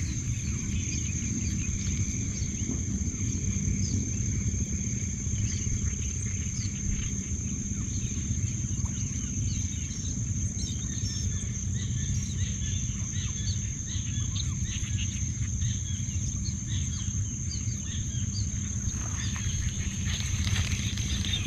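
Countryside ambience: a steady high-pitched insect drone, like crickets, with many short bird chirps scattered over it and a steady low rumble underneath.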